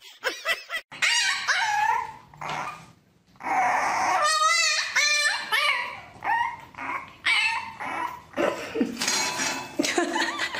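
Dogs whining and yipping: a string of short, high cries that rise and fall in pitch, with a brief pause about three seconds in.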